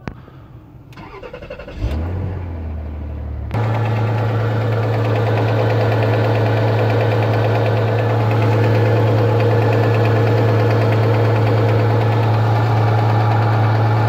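Rover 75's 2.5-litre KV6 V6 running at a cold idle, with a rapid light ticking from the timing-belt end of the engine. The owner hears this knock only on cold mornings; some blame a sticking timing-belt tensioner roller, and he hears it as plastic rather than metal and not hydraulic lifters. The engine sound comes in abruptly about three and a half seconds in, after a thump and a low hum.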